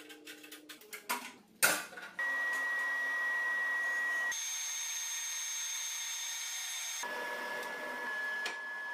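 Bandsaw with a new blade: first a run of clicks and knocks with one loud knock, then the saw running as a steady noise under a single high whine, whose pitch jumps to a different note twice.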